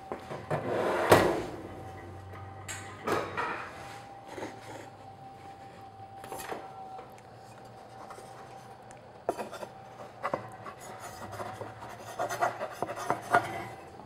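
Baguette dough being slid off a wooden board onto a baking stone in an oven: wood scraping and rubbing against the stone and oven rack. There is one sharp knock about a second in, then scattered lighter knocks and scrapes, over a faint steady tone.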